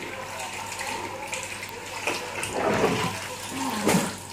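A steady rush of running water over a low hum, with a louder clunk just before the end as the oven door is pulled open.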